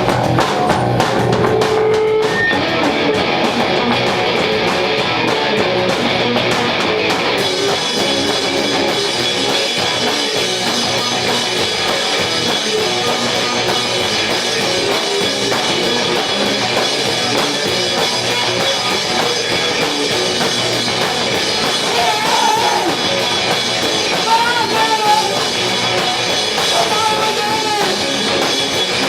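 Live rock band playing, with a drum kit and electric guitars. The sound grows fuller and brighter about seven seconds in, and a wavering melody line rises above the band near the end.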